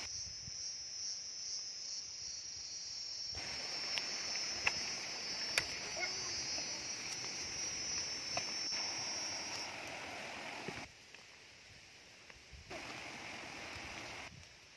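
Insects chirring steadily in one high, slightly pulsing band, with a few sharp clicks on top; the chirring stops about ten seconds in.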